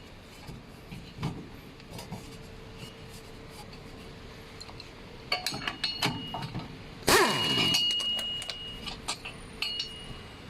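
Metal tools and parts clinking while the rear wheel hub's bolts are undone, with one loud metallic clang about seven seconds in that rings on for over a second, over a faint steady hum.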